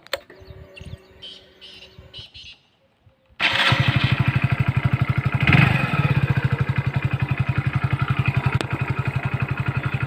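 Hero Splendor motorcycle's single-cylinder four-stroke engine starts abruptly after a few faint clicks, then idles with an even beat, with a short blip of revs just after it catches.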